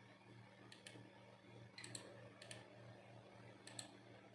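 Faint computer mouse clicks: four pairs of small clicks, each a press and release, spaced about a second apart, over a faint steady low hum.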